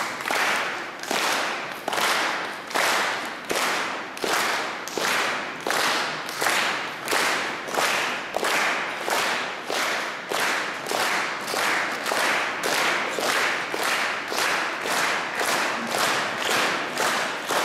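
An audience clapping together in unison, a steady rhythm of just under two claps a second.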